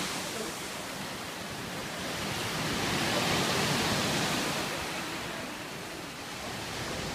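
Sea waves breaking on the beach and against the rocks below: a steady rushing wash of surf that swells in the middle and eases off near the end.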